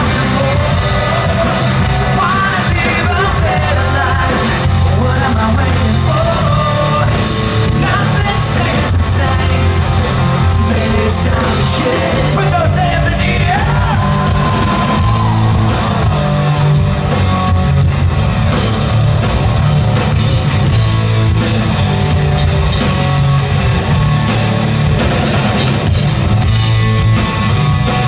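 Loud live rock music from a band on stage: a singer over electric guitars, bass and drums, echoing in a large hall.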